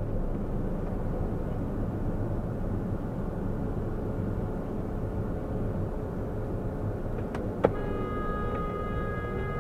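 Steady low road and engine rumble of a car driving, picked up by a dashcam. About seven and a half seconds in comes one sharp knock, followed by a sustained chord of ringing tones.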